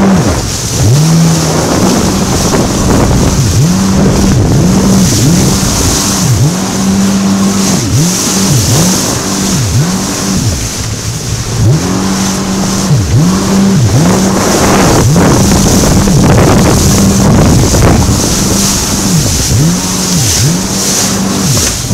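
Jet ski engine running at speed, its note dipping and recovering about once a second, with wind and rushing water.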